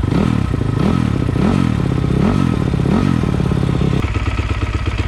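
2020 SSR SR300's four-stroke dirt bike engine running on a newly fitted Lectron carburettor, blipped up and back down about five times in quick succession, then settling to a steady idle near the end. It is running a little rich because the choke is still on.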